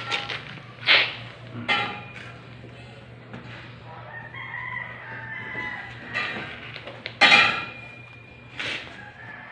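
Roosters crowing and chickens clucking, in several loud calls with quieter stretches between, over a steady low hum.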